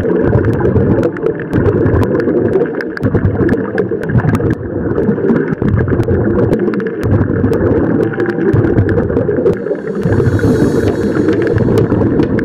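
Underwater sound of a scuba diver breathing through a regulator: a loud rushing, bubbling noise with many small clicks, easing off briefly every couple of seconds.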